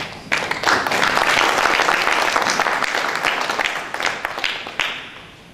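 Audience applauding: the clapping starts sharply, holds for a few seconds, then thins out to a few last claps about five seconds in.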